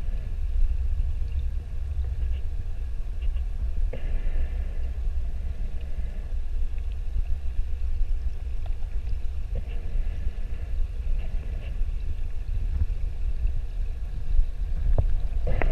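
Muffled low underwater rumble picked up by a submerged camera, with a faint steady whine higher up and a few soft clicks, one about four seconds in and one near the end.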